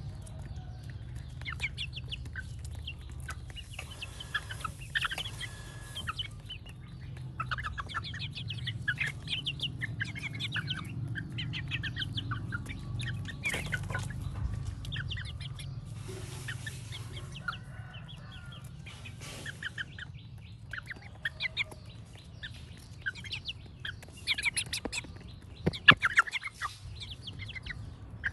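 Half-grown chickens peeping and clucking in quick, high calls as they feed, with a few sharp taps of beaks pecking close by, the loudest near the end.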